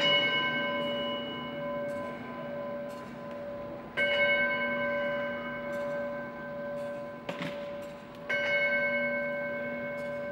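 An altar bell struck three times, about four seconds apart, each stroke ringing on with several steady tones that slowly fade. This is the bell rung at the elevation of the chalice, just after the consecration at Mass.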